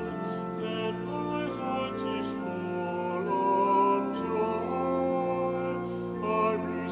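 A communion hymn sung with keyboard accompaniment: a sung line with vibrato over held chords that change every second or so.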